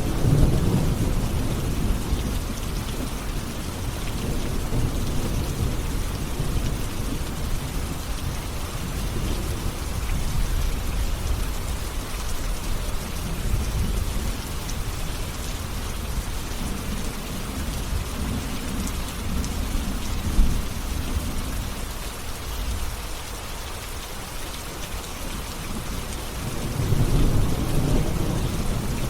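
Steady rain falling, with low rumbles of thunder that swell and fade several times, the strongest right at the start and again near the end.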